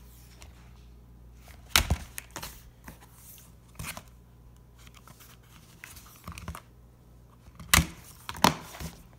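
Plastic DVD cases being handled and flipped through on a wooden table, with sharp plastic clicks and knocks: one pair about two seconds in and two louder ones near the end.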